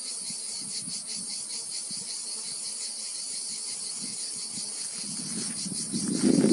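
Insects chirring outdoors: a steady, high, finely pulsing shrill. Near the end a louder, lower noise builds up over it.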